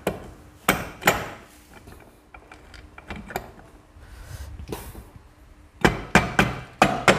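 Sharp hammer knocks on a motorcycle engine's crankcase as the case half is tapped down into place: two blows about a second in, a few light clicks, then a quick run of about six blows near the end.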